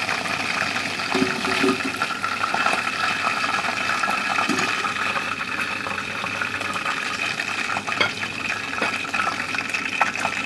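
Marinated chicken pieces deep-frying in hot oil in a pan, being fried to golden brown: a steady sizzle full of tiny crackling pops.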